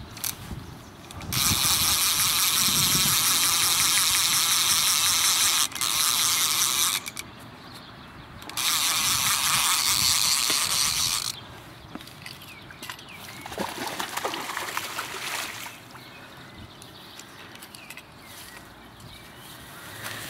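Fly reel's ratchet drag buzzing as a hooked brown trout pulls line off, in three long runs of a few seconds each, the last one fainter.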